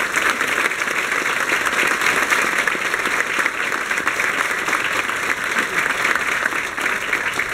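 Audience applauding at a steady level, many hands clapping together.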